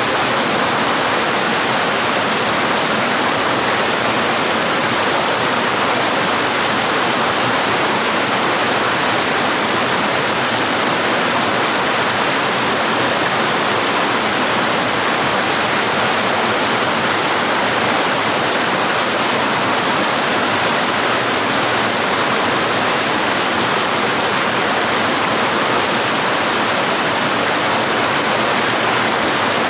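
Waterfall and stream water flowing, a loud, steady, even hiss of falling water with no breaks.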